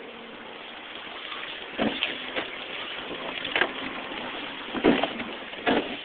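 Boat hull smashing through sheet ice, with several sudden loud cracking crunches over the steady hum and hiss of the boat's motor running.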